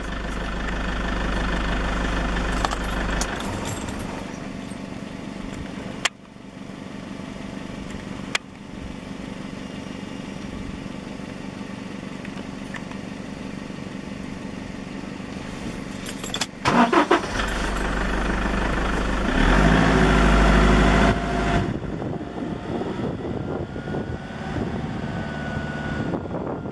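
Car engine idling steadily, with two sharp clicks in the first third; about two-thirds of the way through it grows louder for a few seconds as the car moves off.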